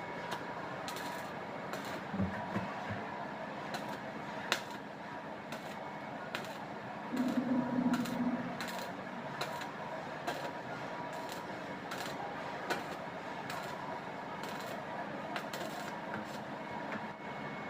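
Stick welding arc on pipe: a steady crackling sizzle with irregular sharp pops, and a brief louder low drone about seven seconds in.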